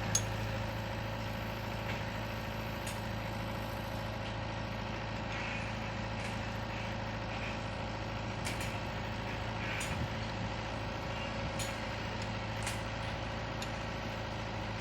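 Heavy diesel engine of a tracked backhoe idling steadily, with a few scattered light clicks and taps over it.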